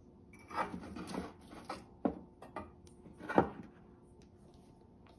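Small decorations being set back onto a glass-topped table: a few light knocks and clatters, the sharpest about three and a half seconds in.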